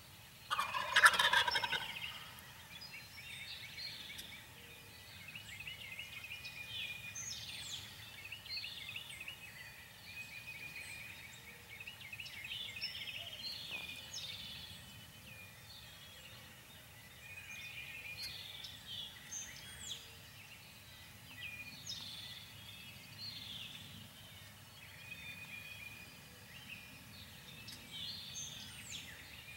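Wild turkey gobbling once, loud and brief, about a second in, followed by many faint songbird chirps and trills.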